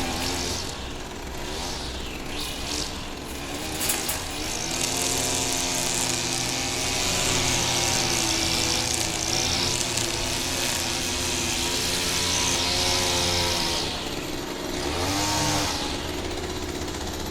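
Petrol string trimmer cutting grass: the engine speeds up a few seconds in and holds high revs with a hiss from the spinning line, drops briefly near the end, revs once more, then settles to a lower speed.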